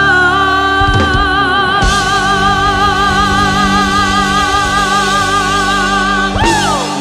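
A woman sings live and holds one long high note with a wide vibrato over band accompaniment. There are a few low drum hits about a second in, and near the end the note breaks into a short falling glide as the song closes.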